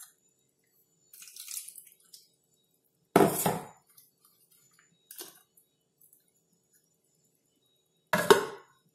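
Water being swished in a stainless-steel mixer-grinder jar and poured into a steel pot of ragi batter, with two loud clanks of the steel jar and its lid against the pot: one about three seconds in and one near the end, and a small click between them.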